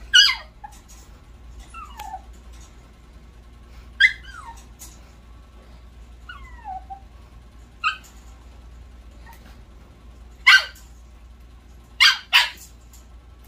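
Shih Tzu puppy yipping and whining: short, high-pitched calls spaced a second or two apart, several falling in pitch, with a longer falling whine midway and two quick yips close together near the end.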